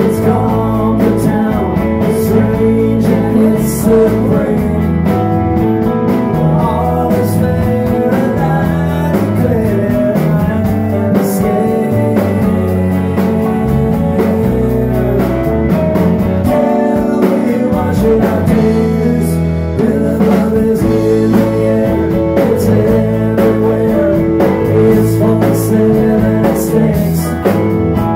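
Live band playing a song: electric guitars, bass guitar and drum kit, with a lead vocal at times.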